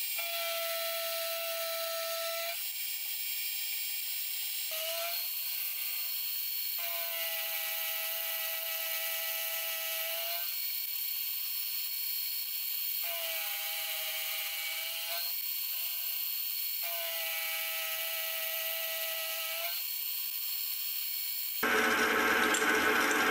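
Sieg X2.7L benchtop milling machine cutting 4140 steel with a carbide end mill under coolant. A steady spindle whine runs throughout, and a ringing tone from the cut comes and goes in several stretches of a few seconds as the cutter takes its passes. Near the end the sound changes abruptly to a louder, rougher noise.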